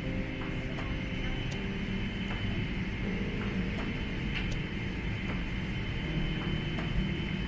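Airliner cabin noise: a steady low rumble with a thin, constant high whine and scattered light clicks.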